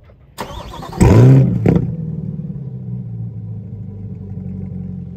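A 2023 Chevrolet C8 Corvette Stingray's 6.2-litre LT2 V8, fitted with an AWE Track cat-back exhaust, warm-starting: the starter cranks briefly, the engine catches about a second in with a loud rev flare that rises and falls, then settles into a steady idle.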